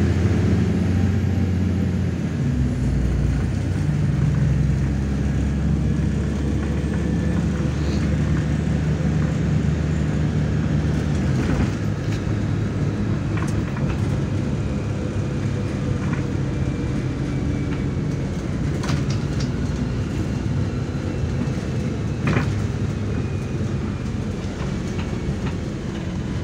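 Interior of a MAZ 103.465 city bus on the move: the engine runs with a steady low drone that shifts in pitch over the first few seconds, then holds. Road noise runs underneath, with a few sharp rattles and knocks from the body along the way.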